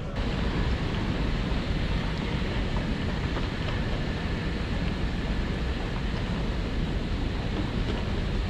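Steady rushing noise with a strong low rumble as the camera is carried along an airport terminal concourse. It begins abruptly and then holds level.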